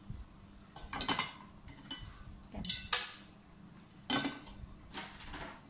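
Kitchen items being handled: about four or five short clattering knocks, spaced a second or so apart.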